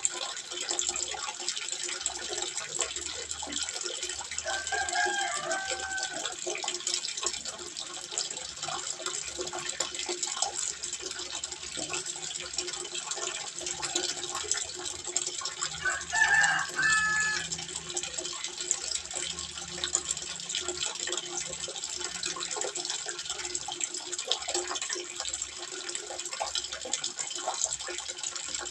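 Water trickling steadily into a small fish pond. Two brief pitched calls stand out over it, one about five seconds in and a louder one just past halfway.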